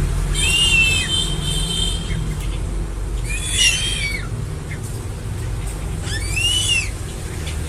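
Crested eagle calling three times with high, arching whistled screams, over a steady low rumble in the background.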